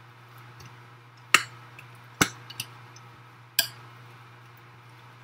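A stirring utensil clinking against a mixing bowl a few times as chocolate chips are folded into stiff, sticky oatmeal cookie dough. The clinks are sharp and come about a second apart.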